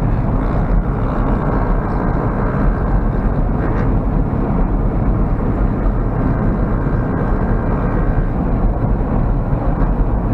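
Honda CG Fan 150's single-cylinder four-stroke engine, breathing through a loud aftermarket V3 exhaust, running steadily at high revs against the rev limiter.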